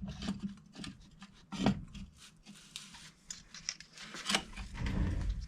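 Hands working metal turbocharger parts: scraping and rubbing, with a couple of sharper clicks and a heavier rumbling handling noise near the end.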